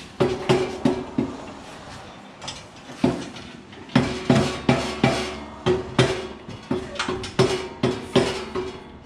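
Hammer blows on a metal part of a snow blower attachment during assembly, about three strikes a second, each leaving a short metallic ring. There is a pause of about a second and a half soon after the start, then steady hammering again.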